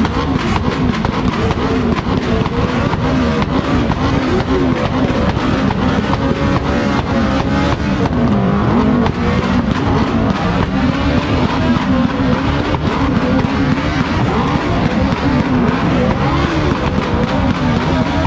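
Several motorcycle engines revved hard over and over, their pitch swinging up and down in quick waves.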